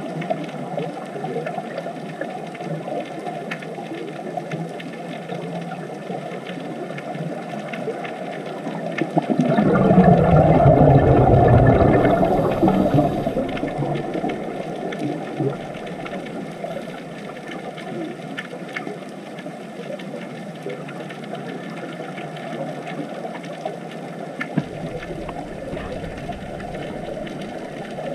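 Underwater ambience: a steady crackling hiss that swells into a louder low rush about ten seconds in, then fades back over the next few seconds.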